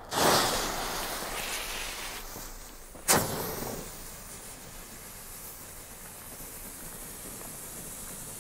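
Green Funke 'Geysir Kaliber A' ground fountain (category F1 firework) catching and spraying with a sudden whoosh into a loud, steady hiss. A single sharp crack comes about three seconds in, then the hiss carries on.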